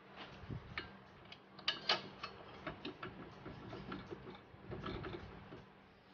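Irregular clicks and light metallic knocks as parts of a car's front shock absorber strut and its clipped-on wiring are handled, the loudest cluster about two seconds in.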